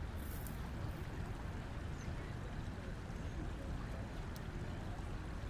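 Steady low rumble of outdoor background noise through a surveillance camera's microphone, with a few faint short chirps above it.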